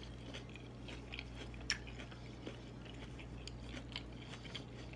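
A person chewing a fried deviled egg close to the microphone: soft, scattered mouth clicks and smacks, with one sharper click a little under two seconds in.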